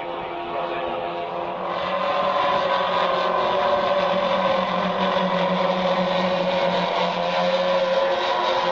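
Giant four-engine radio-controlled model airplane, powered by four 160cc engines, flying overhead with its engines droning together at a steady pitch. The drone gets louder about two seconds in.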